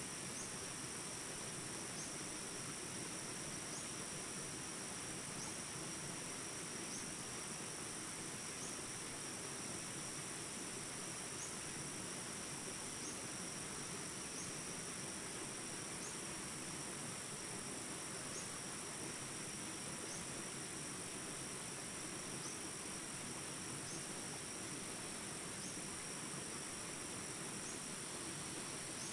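A steady chorus of insects buzzing high, with a faint short chirp about every two seconds. Underneath runs the even rush of small forest rapids.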